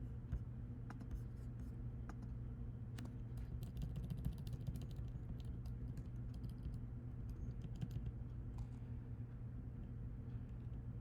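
Computer keyboard typing and clicks, scattered and coming in quick runs a few seconds in, over a steady low electrical hum.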